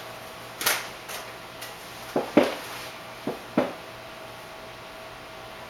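Several sharp slaps of hands striking each other, about seven in the first four seconds, the loudest about two and a half seconds in, over a faint steady hum.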